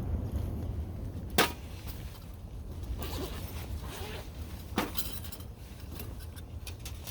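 Low wind rumble on the microphone with two sharp clinks, one about a second and a half in and one near five seconds, and a few fainter ticks near the end.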